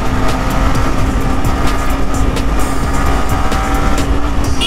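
Motorcycle riding at a steady speed: the engine holds an even note under heavy wind rush on the microphone.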